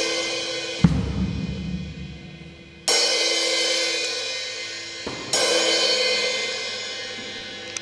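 Drum kit: a low drum hit about a second in, then two cymbal crashes about three and five seconds in, each left to ring and fade for a couple of seconds.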